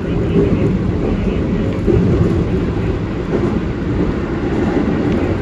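Keikyu Main Line electric train running, heard from inside the passenger car: a steady low rumble of wheels and running gear on the rails.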